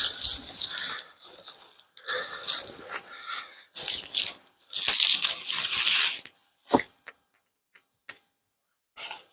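Dry, collapsed potato foliage rustling and crackling as it is handled, in three long bursts, followed by a single sharp knock about seven seconds in and a few faint ticks.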